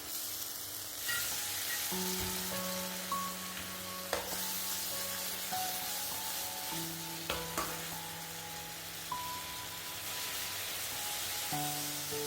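Food sizzling steadily in a hot pan as it is stir-fried, with a few sharp clacks of the utensil against the pan, under soft background music with held notes.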